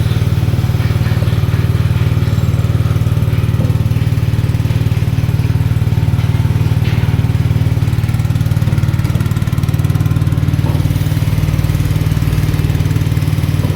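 MAR-C A200 coconut milk press driven by a small engine, running steadily as it presses grated coconut.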